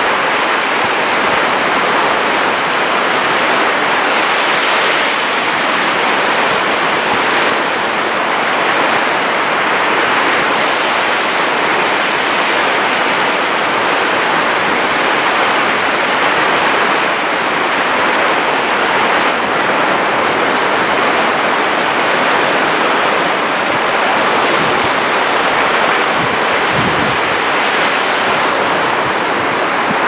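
Moderate Baltic Sea surf breaking and washing up a sandy beach: a steady, unbroken rush of waves, picked up by a camera's built-in microphone.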